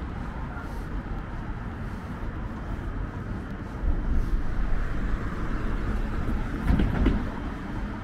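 Street rumble of a passing vehicle, growing louder about halfway through and easing off again near the end, with a few short knocks as it peaks.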